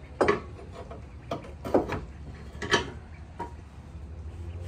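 A handful of irregular sharp clicks and knocks as the front stabilizer bar bushings and their brackets on a Honda Acty are worked into place by hand, over a steady low hum.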